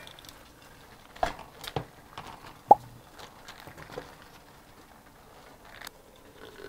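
Napa cabbage leaves being handled and stacked into a stainless steel steamer pot, with soft leafy crunches and light knocks against the metal. A single sharp clink of metal with a short ring comes a little before halfway, and the pot lid is lowered near the end.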